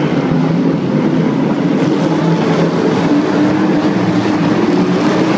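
A pack of figure-8 race cars running together on the track. It is a loud, steady engine sound made of several engine notes that waver up and down as the cars lift and accelerate.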